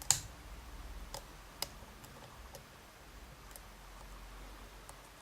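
Lock pick working the pins of a Dom S challenge lock under tension: one sharp click just after the start, then a few fainter clicks spaced out over the next few seconds.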